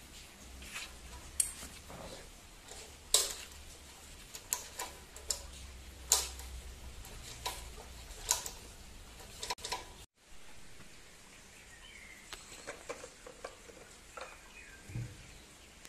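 Steel open-end spanners clinking against the adjuster nuts of a control cable on a tiller handlebar as the nuts are tightened: a series of sharp, irregular metal clicks, the loudest about 1.5, 3, 6 and 8 seconds in. After a break about 10 seconds in, softer, sparser handling clicks follow.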